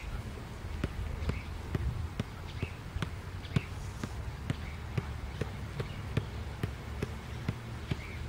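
Soccer ball being juggled with one foot: a steady run of dull kicks on the ball, a little over two a second.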